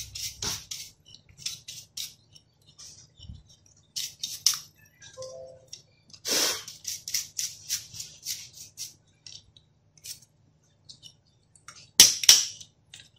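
A dry brush scrubbing packed dust off a laptop's cooling fan and heatsink in quick bristly strokes, coming in bunches with short pauses. There is one louder scrape near the end. The dust buildup was choking the airflow and making the laptop overheat.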